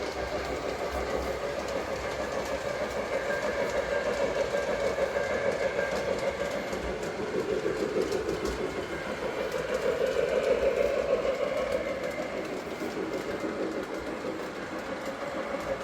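Lionel Legacy 2-8-0 O-gauge model steam locomotive running around the layout: its motor and wheels on the rails with the onboard steam sound effects. The sound is steady and swells a little louder about ten seconds in.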